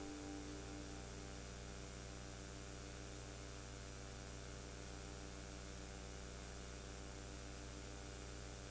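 Steady electrical mains hum with hiss, as the last guitar note fades out in the first second.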